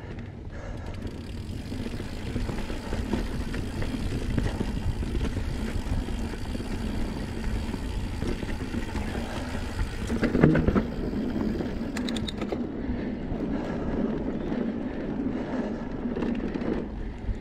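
2019 Santa Cruz Blur mountain bike rolling along a dirt singletrack: a steady rumble of tyres on dirt and the bike rattling over the ground. There is a louder jolt about ten seconds in, followed by a few sharp clicks.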